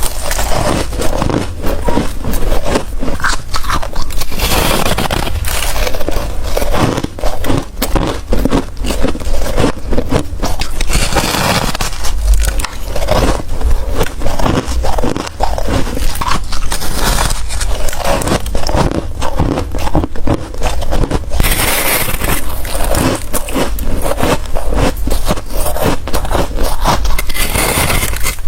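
White freezer ice and frost being bitten, crunched and scraped close to the microphone, a dense run of crackly crunches without pause.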